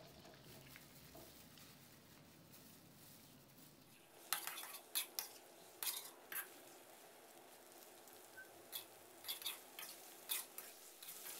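Metal spatula scraping and clinking against a steel wok while tofu cubes are stir-fried in a little oil. The clinks start about four seconds in and come irregularly, a dozen or so sharp knocks and scrapes.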